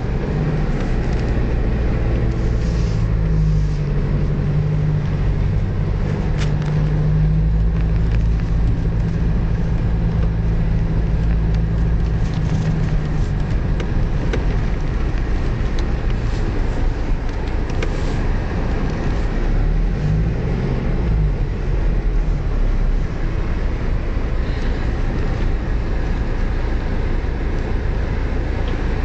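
Car driving slowly on a snowy road: steady low road and engine rumble, with the engine note holding steady for a stretch, then briefly dropping and rising again past the middle.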